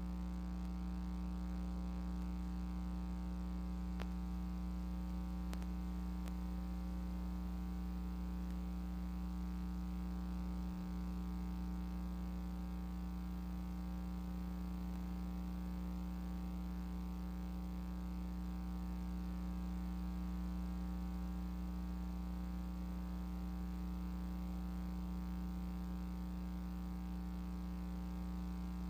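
Steady electrical mains hum with a buzz, holding one low pitch at an even level.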